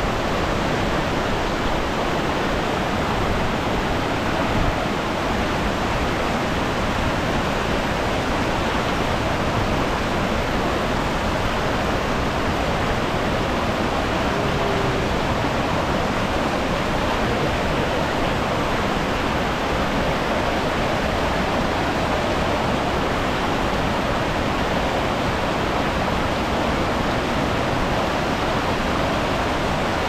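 Steady rush of water tumbling over boulders in a shallow rocky river, with the roar of a high waterfall upstream.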